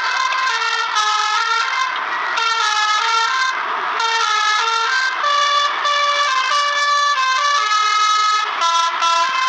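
Manually played telolet horn: a set of air horns sounding a quick melody of short notes that change pitch every fraction of a second, with brief rushes of noise about two and four seconds in.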